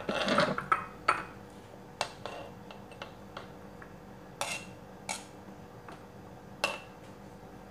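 Kitchen knife working on a plastic cutting board as banana slices are pushed off into a bowl. A busy patch of cutting and scraping knocks in the first second, then scattered single sharp clicks and taps of the knife on the board and bowl.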